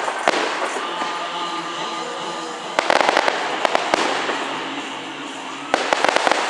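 Aerial fireworks: dense clusters of rapid crackling pops, about three seconds in and again near the end, with a continuous hissing, fizzing background between the clusters.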